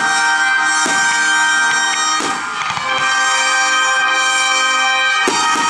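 Loud music with long held notes accompanying a fireworks display, broken by about five sharp firework bangs, the strongest about two seconds in.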